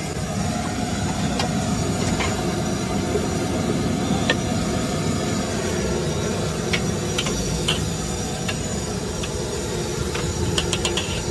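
Steady low roar from the LPG burner under a large iron kadai of hot oil where bhature are deep-frying, with scattered light clicks of a metal slotted spoon against the kadai.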